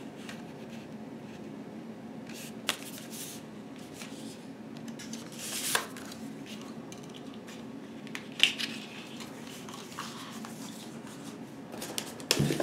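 Cardboard mini-LP replica CD sleeves being handled and slid into and out of a cardboard storage box: a few short scrapes and taps, the loudest about eight seconds in, over a steady low hum.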